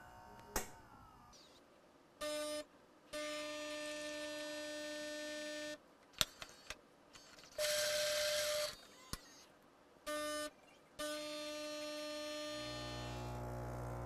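Gaggia Velasca super-automatic espresso machine running a double grind-and-brew cycle, played sped up: its pump hums in stretches of a few seconds, broken by short clicks and a noisier hissing stretch about eight seconds in. A lower hum joins near the end.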